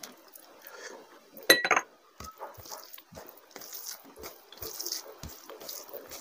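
Curry gravy poured from a small glass bowl onto rice, then the glass bowl set down on a glass saucer with a sharp clink and brief ring about a second and a half in. After that, soft wet squelching of a hand mixing rice with gravy on a plate, with small taps.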